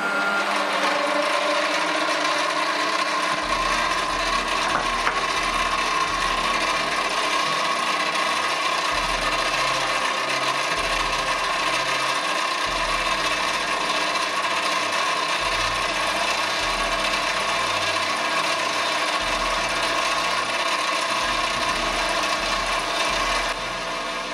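Gear-driven mini lathe (Foreman TB1835) running, its headstock gears giving a steady whine over a dense mechanical clatter, which starts abruptly as the machine is switched on.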